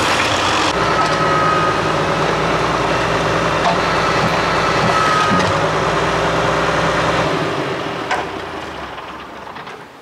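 County 1124 tractor's diesel engine running steadily, with a faint whine coming and going. The sound fades out over the last few seconds.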